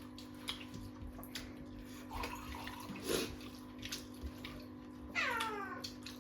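A cat meows once about five seconds in, a single falling cry. Small clicks and wet mouth noises of eating are heard over a steady low hum.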